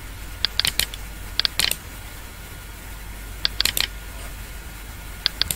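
Computer mouse clicks and scroll-wheel notches in four short clusters of a few sharp clicks each, spaced one to two seconds apart, over a faint steady hum.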